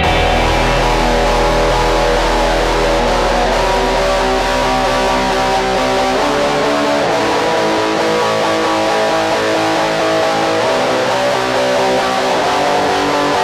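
Post-rock/blackgaze instrumental passage: layered electric guitars strummed and ringing in a dense, sustained wash. A low bass note fades out about halfway through, with no drums.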